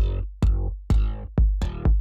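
Electronic background music with a steady drum-machine beat, about two beats a second, over a deep bass line.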